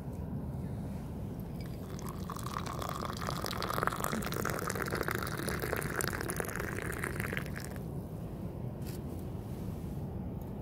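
Hot tea poured from a camping kettle into an enamel mug: a steady stream of liquid starting about two seconds in, its pitch climbing a little as the mug fills, then stopping near eight seconds.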